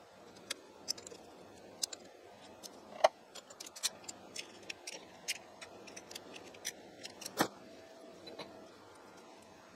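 Irregular sharp metal clicks and clinks of hand tools working on a milling machine's hand-wheel shaft assembly, a socket ratchet among them. Two louder knocks stand out, about three seconds in and again past seven seconds.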